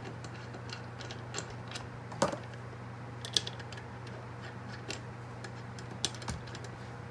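Scattered light clicks and taps of metal parts as a brake caliper and its parking-brake stopper are handled and the stopper is threaded in by hand, with one sharper knock about two seconds in. A steady low hum runs underneath.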